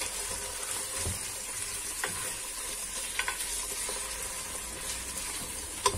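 Chunks of lean beef sizzling in oil as they brown in an open pot, with a few light taps as a utensil turns the pieces over.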